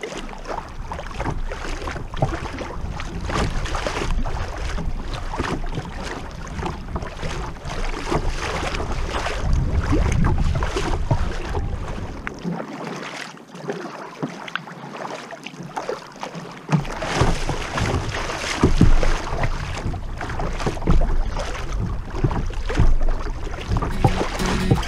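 Wind buffeting the kayak's bow-mounted microphone with a heavy rumble, over choppy open water splashing against the kayak's hull. The low rumble drops out for a few seconds in the middle.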